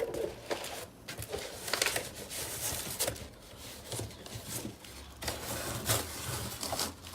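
Irregular rustling, scraping and short knocks from packaging and toolbox parts being handled during unboxing.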